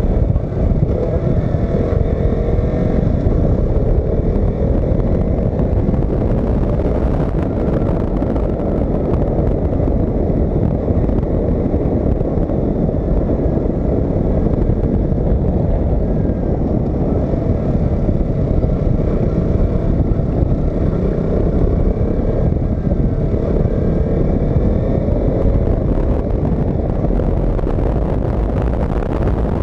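KTM RC 200's single-cylinder engine running under way, its pitch slowly rising and falling with the throttle, under a heavy rush of wind on the on-bike camera.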